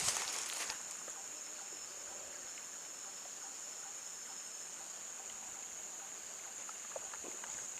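Insects droning steadily at a high pitch, with a brief rustle in the first second.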